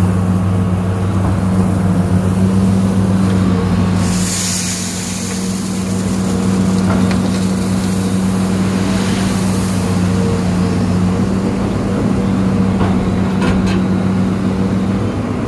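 Hitachi excavator's diesel engine running steadily, heard from inside the cab while the machine swings and lowers a bucket of crushed limestone. A brief hiss comes about four seconds in.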